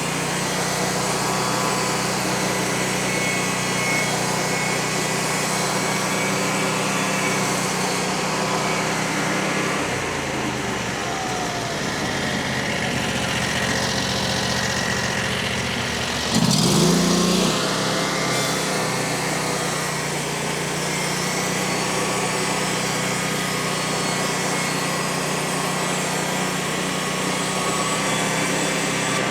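Frontier OS35 portable bandsaw mill's small gas engine running steadily under load as the band blade cuts a slab off a log, with a brief louder surge a little past halfway.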